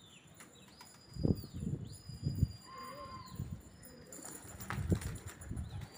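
Flock of pigeons flying over the rooftops: low fluttering bursts of wingbeats about a second in and again near the end, with several long, high, thin whistles.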